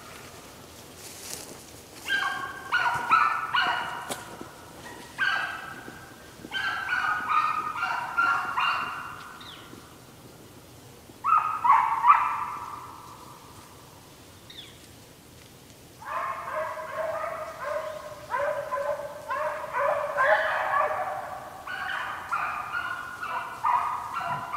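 A pack of deer hounds barking and baying in four bursts of rapid, overlapping calls with short pauses between. The last burst is the longest.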